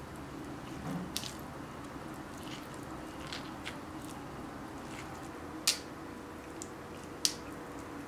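Hands packing a rice-and-meat stuffing into dried Altınözü red peppers: soft squishing of the wet filling with a few scattered sharp clicks and crackles, the sharpest about two-thirds of the way through.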